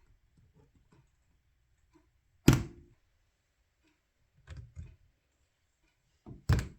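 Keyboard parts being handled during assembly, heard as sharp knocks: one loud knock about two and a half seconds in, two lighter knocks about two seconds later, and another close pair near the end.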